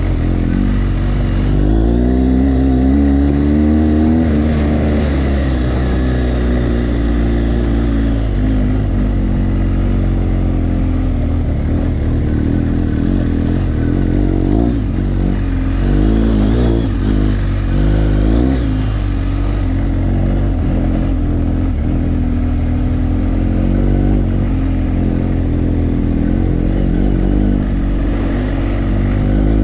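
BMW GS adventure motorcycle's boxer-twin engine running under load on a dirt track, its note rising and falling a few times as the throttle opens and closes.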